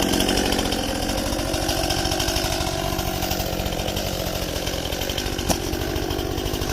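STIHL MS261 C two-stroke chainsaw running steadily, with a brief sharp click about five and a half seconds in.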